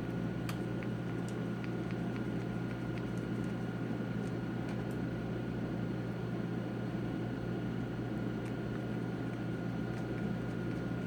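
Steady low hum with a thin high tone over it, and a scatter of faint light clicks from a small screwdriver and screws being worked on a laptop's screen assembly.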